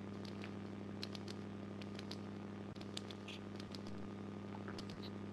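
Faint steady electrical hum with soft, scattered clicks, heard over a video-call microphone.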